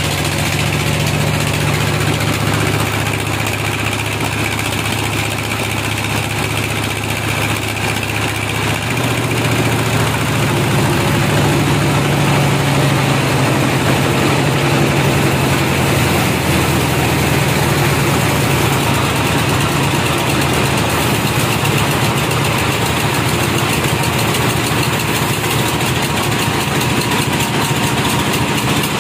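Band sawmill running steadily, a loud machine drone with a low hum; about nine seconds in the hum shifts and grows a little louder.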